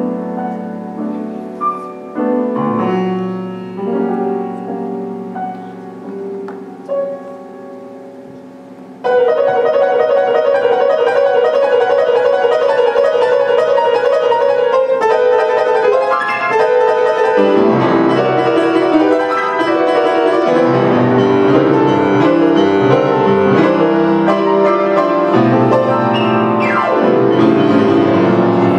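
Solo grand piano played: soft, thinner passages at first, then, about nine seconds in, it turns suddenly loud and dense with fast, many-note playing.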